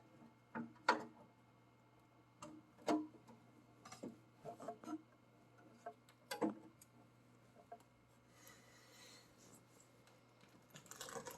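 Scattered light clicks and knocks of small hard objects being handled, about a dozen spread unevenly, with a short rustle near the end.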